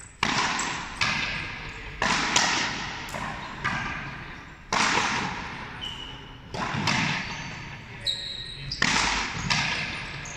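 Frontenis rally: the rubber ball cracking off the players' rackets and the front wall about once a second, each hit ringing on in the echoing frontón hall.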